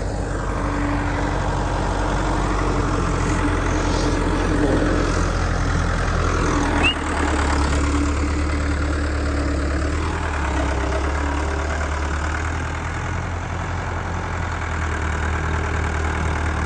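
Vehicle engine running steadily at low revs, with a change in the low drone about seven seconds in, while a stuck van is pulled back out of mud by a tractor.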